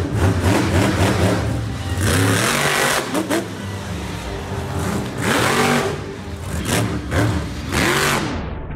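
Monster truck engines revving hard, the pitch climbing and dropping again several times between loud surges of engine and exhaust noise.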